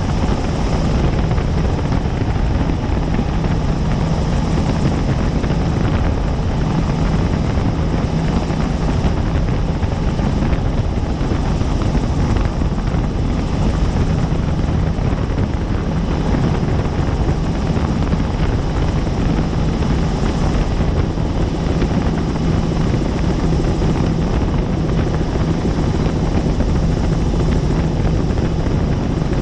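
Helicopter in flight, heard from on board: a loud, steady noise of engine and rotor with a constant low hum, unchanging throughout.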